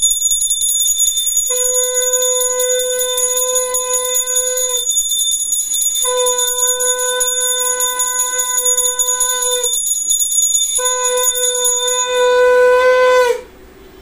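Small brass puja hand bell rung rapidly and continuously, with a conch shell (shankha) blown in three long, steady blasts of about three seconds each. The bell stops near the end, and the last blast gets louder before it cuts off.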